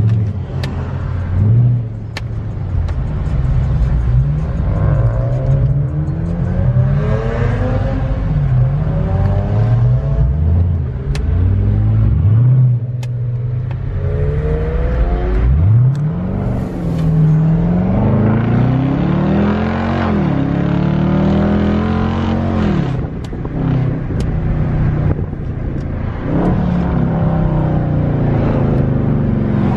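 Mopar muscle car engines revving over a deep idle, the pitch climbing and falling back again and again.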